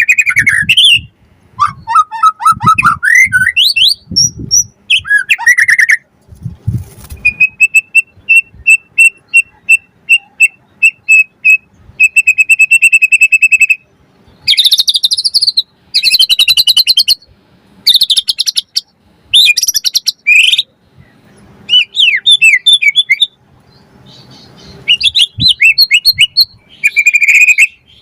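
White-rumped shama (murai batu) singing loudly in varied phrases separated by short pauses. Midway it repeats one high whistled note about three times a second, then runs it into a fast trill before returning to rich, fast mixed phrases.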